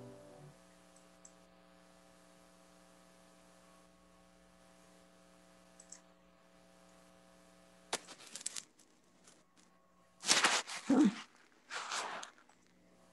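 The last note of a brass postlude ends in the first half second, leaving a steady electrical hum. About eight seconds in, and twice more near the end, come short bursts of noise over the hum.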